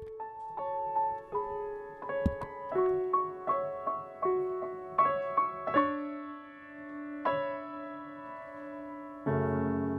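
Piano playing a slow melody of single struck notes, each ringing and fading before the next. A lower note is held under the tune partway through, and near the end fuller accompaniment comes in.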